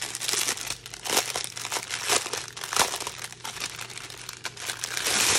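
Thin clear plastic bags of pre-packaged diamond painting drills crinkling and rustling as they are handled, in uneven spurts of crackle.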